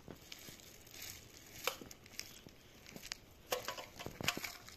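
Small stones clicking and loose gravel scraping as a child's hands scrabble in a rocky slope, with a few sharper clacks of stone on stone, the loudest near the end.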